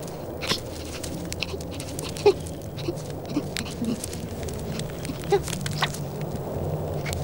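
Cartoon squirrel sound effects: a scatter of short squeaks and soft clicks over a steady low hum.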